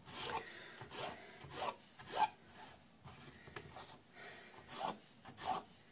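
Kitchen knife slicing a peeled raw potato into rounds on a cutting board: a series of short, irregularly spaced cutting strokes, each a soft crunch through the potato ending on the board.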